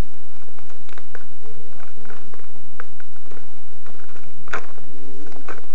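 Light clicks and taps of small plastic parts being handled while swapping the tail rotor blades on a Walkera CB180D micro helicopter, with one sharper click about four and a half seconds in.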